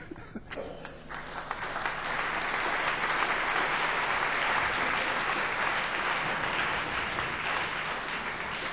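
Audience applauding at the end of a lecture. The clapping swells about a second in and eases off near the end.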